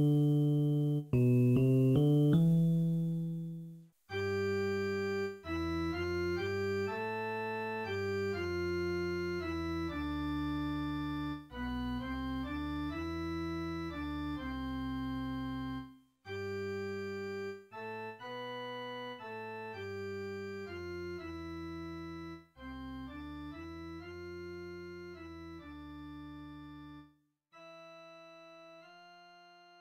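Instrumental music: slow, held chords in short phrases. There is a brief break about four seconds in, and the music ends on a softer chord that fades out.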